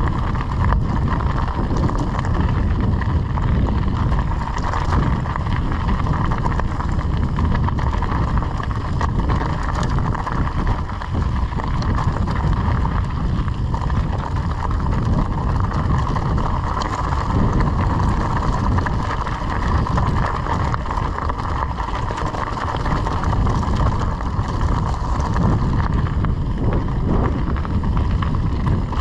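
Wind buffeting the microphone over the steady crunch of a mountain bike's tyres rolling on a loose gravel singletrack.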